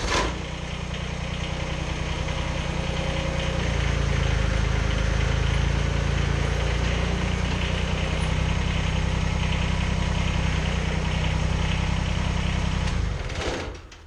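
Kubota BX25 compact tractor's three-cylinder diesel engine, just started, running steadily and coming up a little about three seconds in as the tractor backs up over its tire chains, then shut off about a second before the end.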